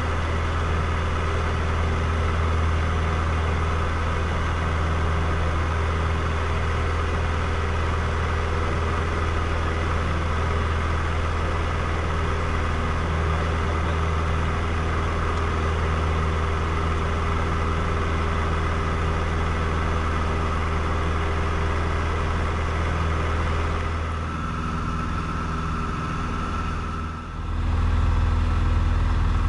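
Steady drone of a Robin DR400's piston engine and propeller in flight, heard inside the cockpit. Near the end the sound drops briefly, then comes back fuller.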